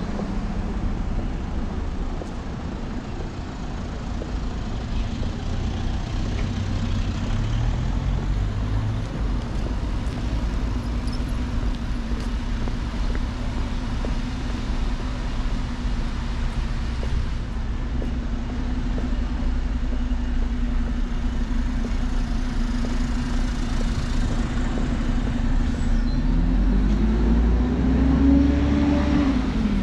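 Road traffic on a wet street: a steady rumble of tyres and engines with a constant engine hum through the middle. Near the end a bus comes by, its engine pitch rising and then falling.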